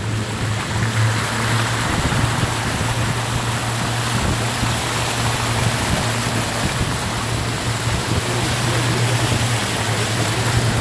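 A tour boat's motor running steadily with a low hum, under a continuous rushing noise.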